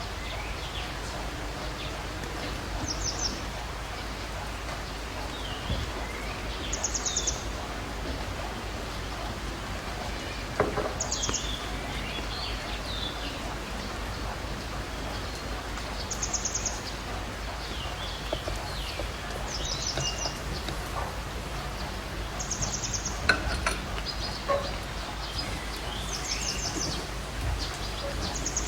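Birds calling: a short, high, rapid trill repeated every few seconds, with softer chirps between, over steady background noise.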